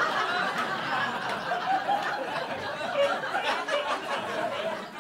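Comedy club audience laughing at a punchline, a steady wash of many people laughing that eases slightly near the end.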